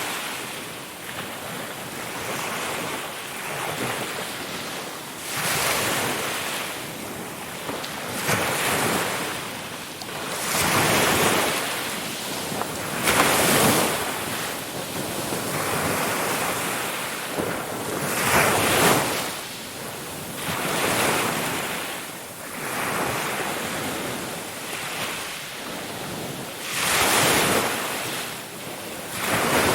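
Ocean waves breaking and washing up on a shore, a continuous rushing surf that swells into a louder break every few seconds, the biggest about halfway through.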